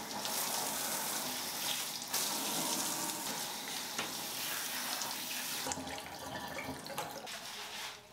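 Handheld shower head spraying water onto long hair, a steady hiss of running water that drops and thins about six seconds in.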